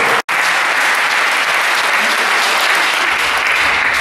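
Spectators clapping after a point in a table tennis match, with a brief dropout about a quarter of a second in.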